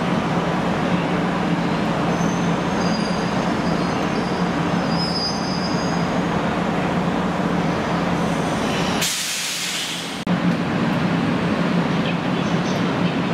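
Abukuma Railway 8100 series electric train standing at the platform, its equipment humming steadily under station noise. Faint high-pitched squeals come about three to five seconds in, and a short burst of hiss about nine seconds in.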